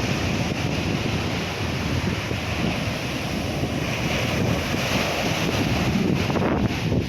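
Sea waves breaking and washing ashore, the hiss of the wash swelling about four seconds in, under heavy wind buffeting the microphone.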